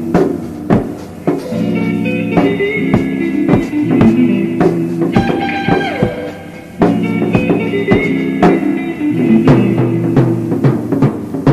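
Small rock band jamming, improvised: guitar chords over a drum kit. About halfway through a note glides down in pitch, the playing thins out briefly, then comes back in full.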